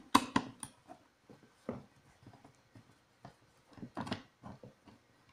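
A small screwdriver working a screw out of a stud finder's plastic housing: scattered light clicks and scrapes, a few at the start, one just under two seconds in and another about four seconds in.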